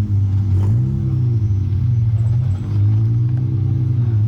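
Car engine running at low revs, its pitch rising and easing off a few times with the throttle.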